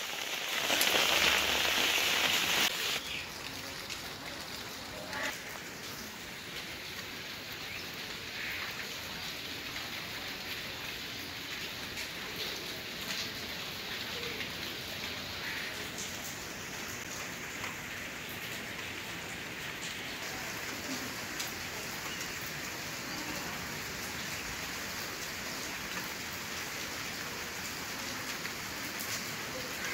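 Rain falling on a paved yard, terracotta pots and garden leaves: a steady patter with scattered individual drop taps. It is louder for the first few seconds, then settles to an even level.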